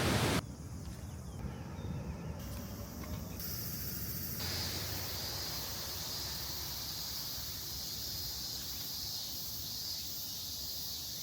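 Insects, crickets or similar, chirping in a steady high-pitched drone that comes in about four seconds in, over a low outdoor rumble.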